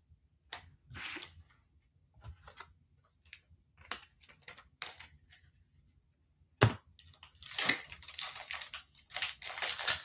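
Foil trading-card pack being handled: scattered light clicks and rustles, a single sharp tap about two-thirds in, then the foil wrapper crinkling and tearing as the pack is ripped open near the end.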